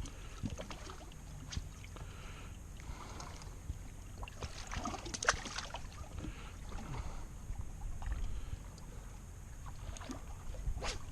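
Steady low rumble of wind and water around a small fishing boat, with scattered clicks and knocks, the sharpest about five seconds in.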